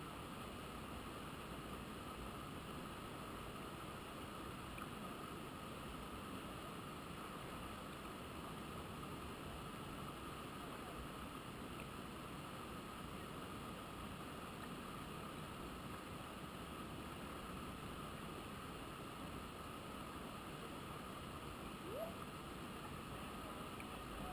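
Steady rushing noise with a faint even high hum over it, and one short rising squeak near the end.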